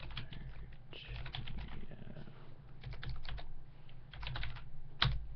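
Typing on a computer keyboard, in several short bursts of keystrokes, with a single louder click near the end.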